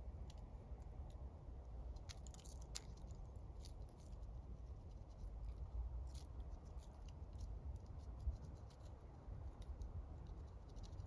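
Wood campfire crackling, with scattered small pops and snaps over a low steady rumble.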